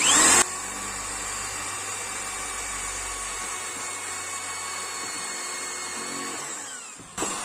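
Buildskill 10 mm corded electric drill drilling into a piece of wood: it starts with a short loud burst as the motor spins up, then runs with a steady whine for about six seconds. It dips briefly and is triggered again near the end.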